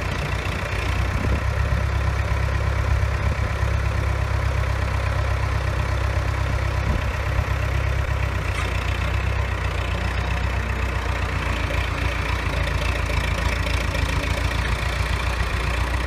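Pettibone telescopic forklift's engine idling steadily, a constant low hum.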